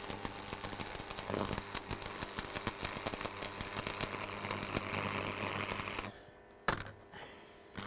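Manual arc (stick) welding: the electrode arc crackles and sizzles steadily as a bead is run around the joint, then stops about six seconds in, followed by a single click.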